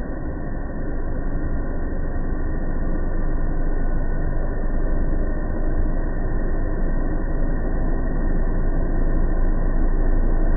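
Sirena water-filter vacuum cleaner running steadily, a constant motor-and-airflow drone that grows a little louder over the first couple of seconds and then holds.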